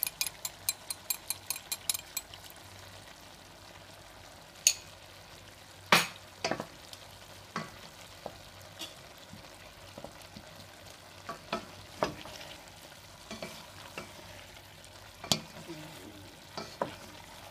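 Stir-fried vegetables sizzling faintly in a pan while a spatula stirs them, knocking against the pan every second or two. A quick run of light clicks fills the first two seconds as the cornstarch slurry goes in.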